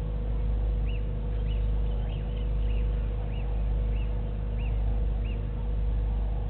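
A steady low rumble with a constant hum, swelling and fading slowly. Over it a bird repeats a short high note that rises and falls, about eight times, one every half second or so.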